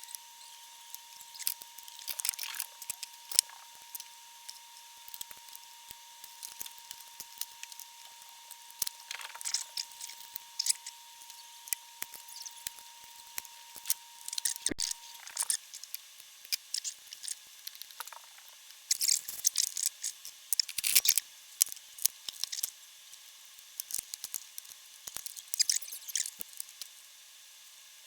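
Small clicks, snips and scrapes of hand tools working on a valve amplifier chassis, with a denser run of clicking a little over two-thirds of the way through. A faint steady high tone sits under it and cuts off about halfway through.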